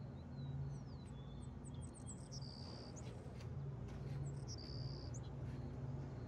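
Birds chirping: a run of quick, high, falling chirps, then two short, high, steady whistles a couple of seconds apart, over a low, uneven hum.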